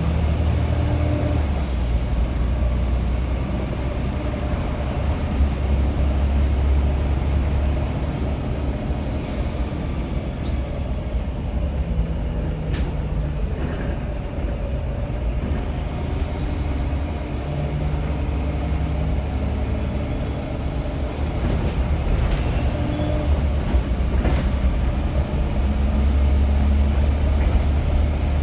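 Volvo B7TL bus's diesel engine running under load, with a high turbocharger whistle that drops in pitch early on and fades out about a third of the way in. The whistle comes back and rises again near the end as the engine pulls harder. A few sharp clicks and rattles come in the middle.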